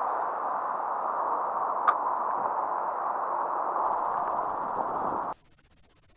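Steady rushing outdoor noise at the lake shore, with one short sharp click about two seconds in. The noise cuts off abruptly about five seconds in, leaving near silence.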